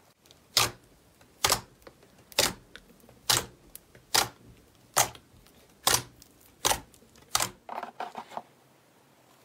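Fingertips poking into a mound of white fluffy slime, each press giving a sharp pop, about once a second, nine times. Near the end come a few quicker, smaller pops.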